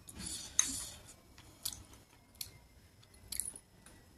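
A white soup spoon scraping and clicking against a small chutney dish and a glass soup bowl: a short scrape with a sharp click near the start, then three light clicks about a second apart.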